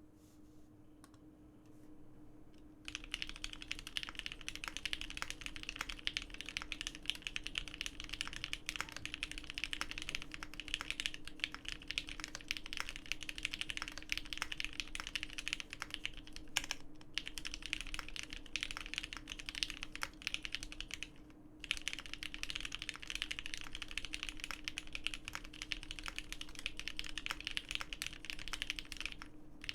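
Fast, continuous typing on a GEON F1-8K mechanical keyboard fitted with lubed vintage Cherry MX Black linear switches on 69 g springs, an FR4 gasket-mounted plate and Cherry G81-3100 keycaps. After a few light keystrokes, dense typing starts about three seconds in, with two brief pauses later on.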